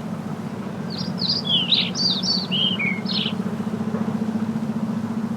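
A songbird sings one quick phrase of about a dozen high chirped notes that step downward in pitch, over a steady low engine-like hum.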